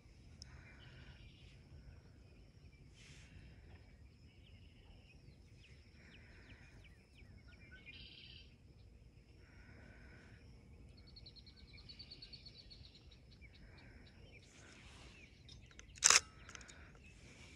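Scattered wild bird calls and chirps over a thin, steady high-pitched whine, with one sharp click near the end.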